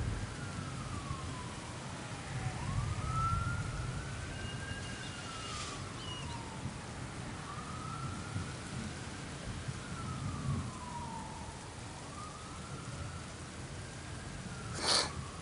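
A faint emergency-vehicle siren wailing, its pitch rising and falling slowly about every four seconds, over steady rain. A low rumble swells about three seconds in, and a sharp click comes near the end.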